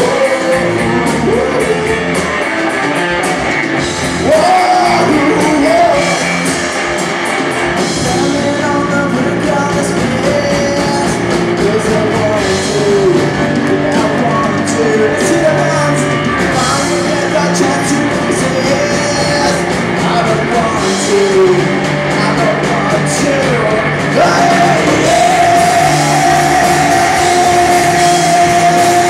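Rock band playing live with a singer. The sung melody rises and falls over the band, and a long held vocal note sets in near the end.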